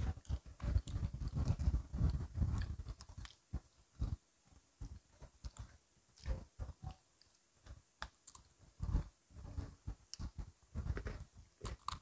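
People biting and chewing crunchy Oreo chocolate sandwich cookies, with many short crunches, dense for the first few seconds, sparser in the middle and picking up again near the end.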